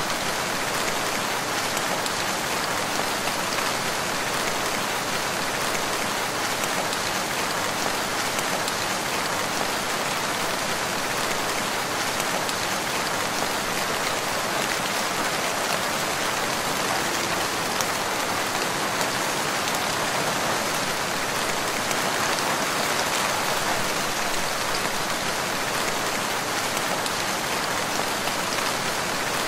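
Steady rain falling, an even hiss of countless drops with no let-up and no thunder.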